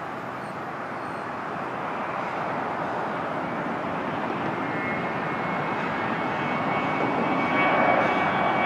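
Twin Garrett TFE731 turbofan engines of a Learjet 31 at takeoff power during the takeoff roll, a jet roar growing steadily louder as the aircraft speeds closer. A thin high whine joins it about halfway through.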